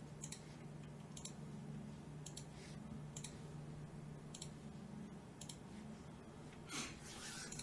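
Faint computer mouse clicks, about eight of them spaced irregularly, over a steady low hum. A short, louder scuffing noise about seven seconds in.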